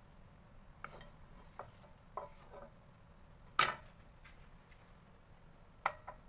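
Wooden spatula scraping and knocking against a wok while food is pushed onto a plate: a scattering of short knocks, the loudest about three and a half seconds in.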